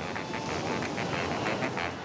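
Birds honking and quacking over a steady rush of breaking surf.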